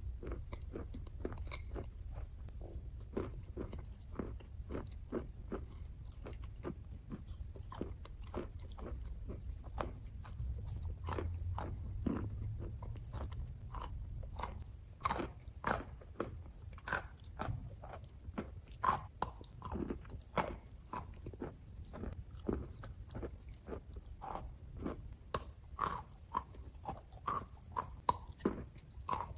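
Close-miked chewing of wet chalk chunks in clay paste: a steady run of small crisp crunches and wet bites, sharper and louder from about halfway through.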